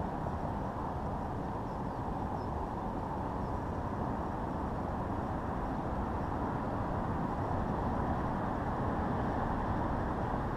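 Steady low outdoor background noise with no distinct event, its energy mostly in the low range.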